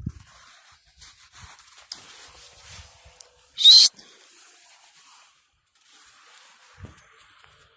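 A dog gives one short, high-pitched whine with a rising pitch, about halfway through; otherwise only faint hiss.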